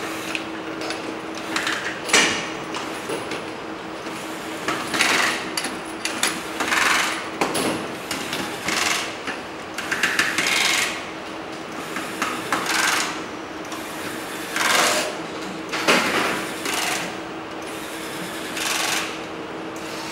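Handheld electric screwdriver whirring in repeated short bursts, each under a second, as it drives screws into a plastic inspection-camera housing, over a steady hum.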